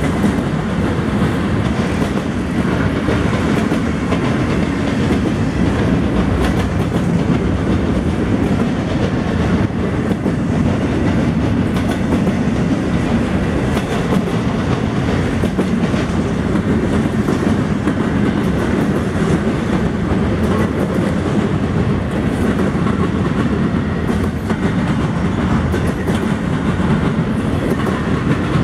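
Double-stack intermodal freight train rolling past close by: a steady heavy rumble of container-laden well cars, with wheels clicking on the rails throughout.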